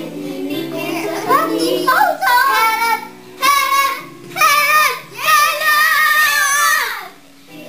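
Young girls singing loudly along with recorded music, in several drawn-out, wavering phrases; the backing music fades about halfway, and the last long note stops shortly before the end.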